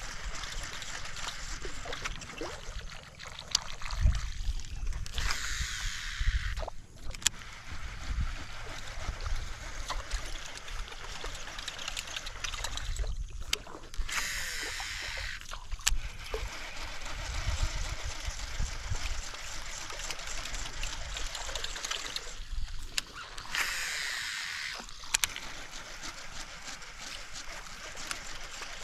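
Water sloshing and trickling around a fishing boat, with three short whirring sweeps about nine seconds apart: line running off a baitcasting reel on each cast.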